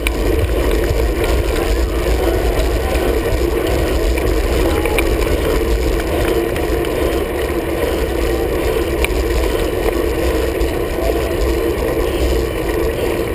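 Road bike being ridden, heard from a camera on its handlebars: a steady rush of wind and tyre noise with a deep rumble.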